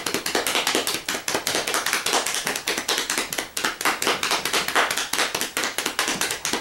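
Hand drum roll: a pair of hands patting rapidly and alternately on a surface, a quick unbroken run of slaps.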